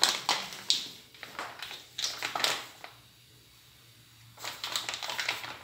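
Plastic tomato-sauce pouch crinkling and rustling in the hands as it is squeezed out, in several short bursts with a quiet pause of about a second and a half in the middle.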